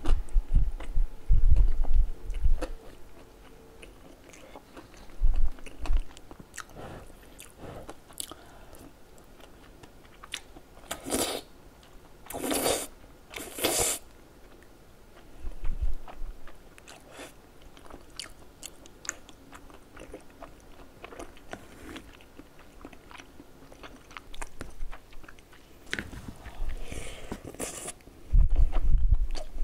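Close-miked eating sounds of cheese tteokbokki: chewing and biting soft chewy rice cakes, fish cake and melted cheese, in irregular wet smacks and squishes. Three louder slurps come in quick succession about halfway through, and a spoonful of the sauce is sipped near the end.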